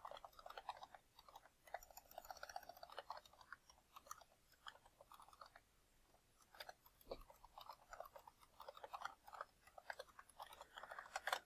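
Faint computer keyboard typing: quick runs of soft key taps with short pauses between them.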